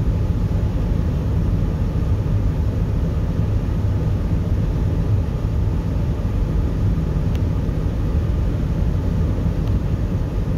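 Steady road and engine noise inside a moving car's cabin: a low rumble with a faint hum.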